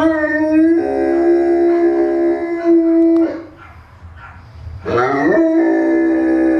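Newfoundland dog howling: a long howl held on one steady note ends about halfway through. After a short pause, a second howl slides up in pitch and settles into another long, steady note.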